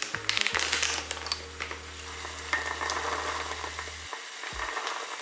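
Pot of five-minute tapioca pearls cooking on the stove, with a crackling sizzle and stirring. A steady low hum runs underneath and cuts off about four seconds in.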